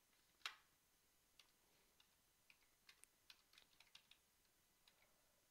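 Faint, irregular keystrokes on a computer keyboard, about a dozen scattered clicks, with a sharper one about half a second in.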